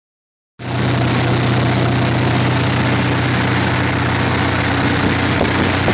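Ski boat engine running steadily underway, with water rushing past the hull and wind; it starts about half a second in.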